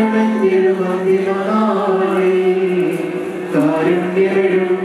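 Voices chanting a slow funeral hymn, holding long notes and moving the tune in small steps, with a short break about three and a half seconds in.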